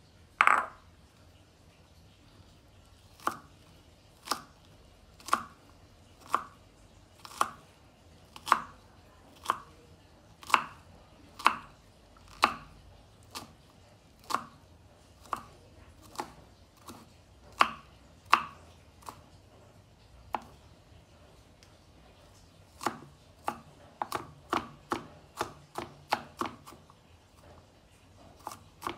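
Kitchen knife mincing garlic cloves on a wooden chopping board: single sharp chops about once a second, then, after a short pause, a quicker run of chops near the end.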